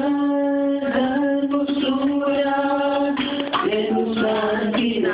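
A group of men and women singing a slow worship song together, holding long notes.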